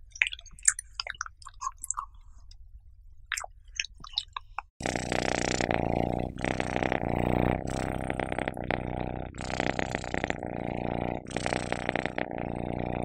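A cat's wet mouth clicks as it licks its lips after eating raw beef. About five seconds in, this gives way to loud close-up purring while its cheeks and chin are scratched: a continuous rumble that breaks briefly every second or two as it breathes.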